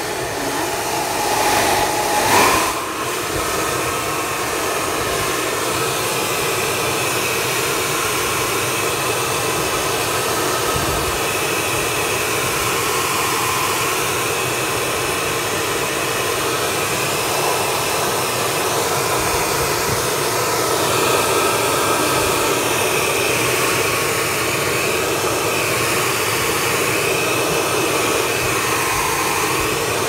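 Hand-held hair dryer running steadily, blowing hot air onto the iced-over evaporator coils of a fridge freezer to melt the frost build-up that is blocking it. A brief knock sounds about two seconds in.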